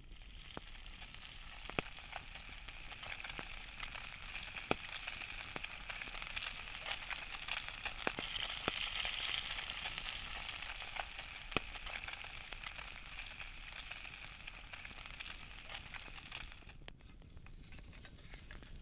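Fish fillets sizzling in a skillet over a wood campfire: a steady frying hiss with a few sharp clicks scattered through it. The sizzle drops away sharply near the end.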